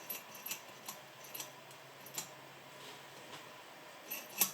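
Faint metallic clicks and taps of hand tools working the BV43 turbo's actuator stop screw, with a sharper click near the end.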